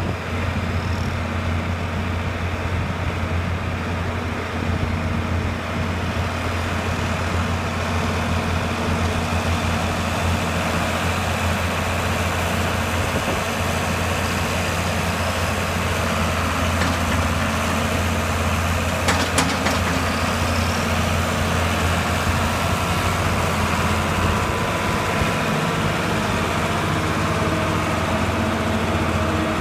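Tractor diesel engines running at a steady speed, a low constant drone, with two short knocks about two-thirds of the way through.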